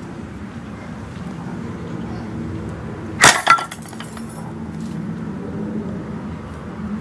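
Pattern-welded steel straight sword (dao) chopping into steel wire and nails set in a wooden stump: two sharp metallic strikes about a quarter second apart, the second ringing briefly.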